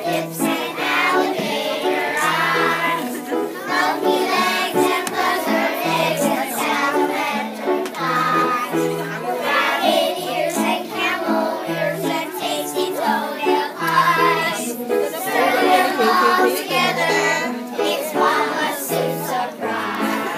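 A group of young children singing a song together over instrumental accompaniment with a bass line of short, changing low notes.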